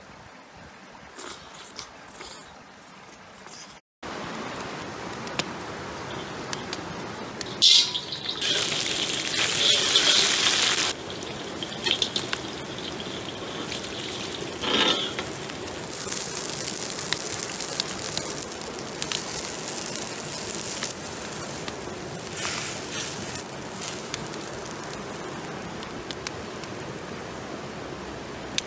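Water trickling for the first few seconds. After a sudden cut comes frying in a large wok: loud sizzling and hissing as dried chilies and aromatics fry and liquid is poured into the hot pan. It settles into a steady sizzle of sauce cooking in the wok.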